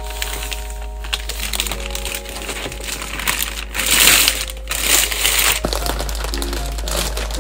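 Clear plastic wrapping crinkling and rustling as it is handled and pulled off a keyboard box, loudest in two stretches around the middle, over background music with sustained notes.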